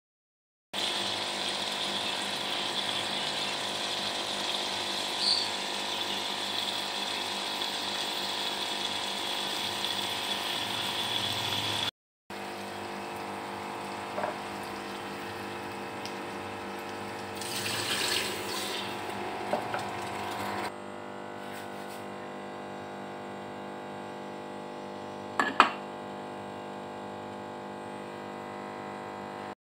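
Steady hiss and hum while mince and potatoes cook in an aluminium pressure cooker, with a few knocks and scrapes of a wooden spoon against the pot. The background steps quieter twice.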